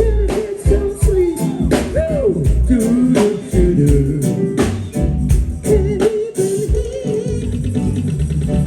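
Live reggae band performance: a sung lead vocal over steady drum hits and a deep bass line.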